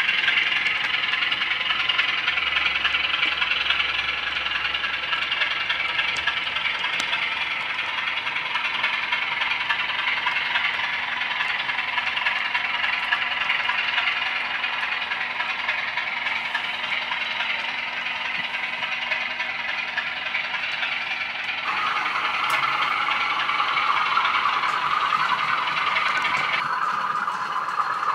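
Model passenger train running on the layout's track: a steady rattling whir of wheels on rail and a small electric motor. Its pitch drops suddenly about three-quarters of the way through.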